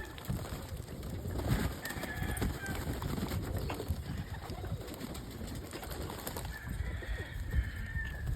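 Domestic pigeons cooing in a loft, with scattered short clicks.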